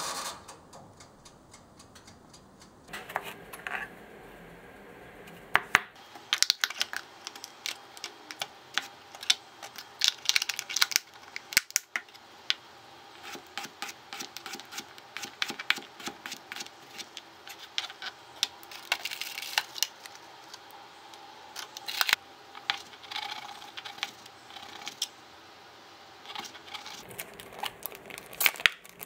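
Kitchen knife slicing cucumber on a plastic cutting board: many sharp, irregular taps of the blade hitting the board. Near the end, plastic food packaging crinkles as it is opened.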